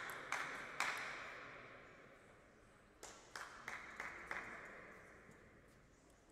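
Sharp taps with echoing tails in a large hall: two in the first second, then a run of about six, roughly a third of a second apart, starting about three seconds in.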